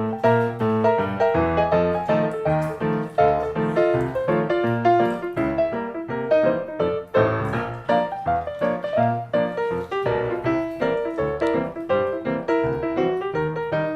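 Background piano music: a lively, continuous run of short notes.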